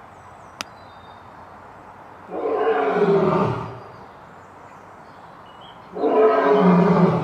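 Lion roaring twice, each roar about a second and a half long and dropping in pitch as it ends.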